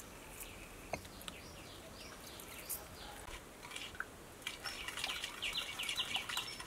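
Birds chirping faintly, with a few light clicks. About four and a half seconds in, a metal spoon starts scraping and stirring in a ceramic bowl of wet sauce.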